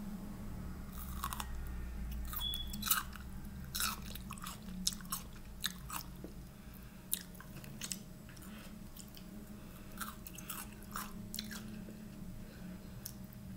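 A person biting and chewing a limp celery stalk close to the microphone: irregular crisp crunches and mouth sounds, coming more often in the first half and thinning out toward the end.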